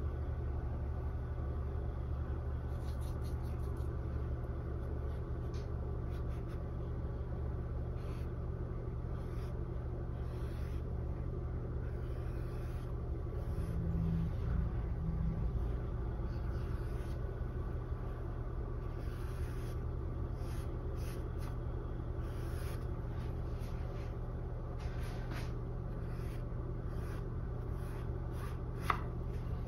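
Paintbrush dabbing and stroking acrylic paint onto a canvas in short, irregular, faint scratchy strokes over a steady low hum, with a single sharp click near the end.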